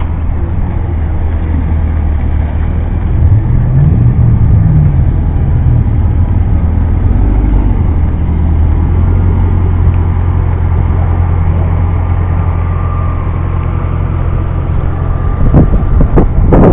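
Car engine running with a deep, steady low rumble as the car rolls slowly at low speed. About three seconds in, the engine note briefly rises and falls.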